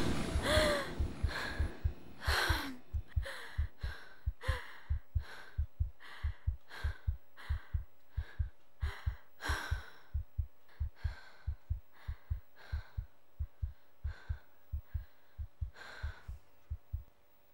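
Heartbeat sound effect in a steady lub-dub rhythm, with quick, heavy breaths and gasps over it. Both grow gradually fainter and stop just before the end.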